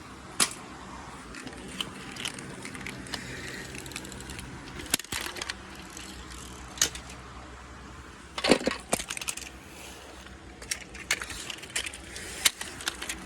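Steady low hum of a car's interior under scattered sharp clicks and rattles, with a loud cluster of knocks about two-thirds of the way through and a run of small clicks near the end.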